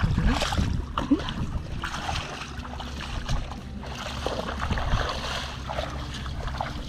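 Feet sloshing and splashing through shallow water and soft mud, irregular steps, over a low wind rumble on the microphone.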